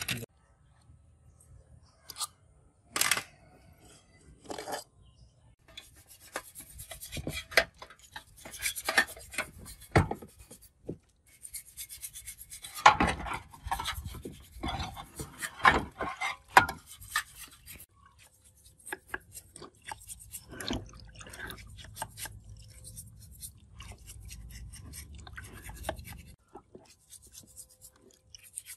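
A stiff brush scrubbing rusty metal generator parts in soapy water, in runs of quick rasping strokes, loudest about halfway through. A few sharp metal clicks come in the first few seconds, as parts are handled.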